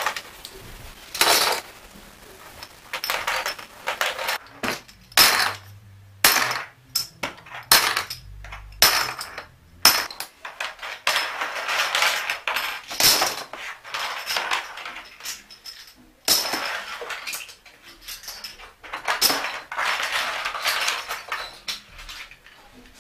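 Handfuls of small plastic dominoes clattering as they are gathered up and dropped into clear plastic storage tubs, in irregular rattling bursts with short pauses between.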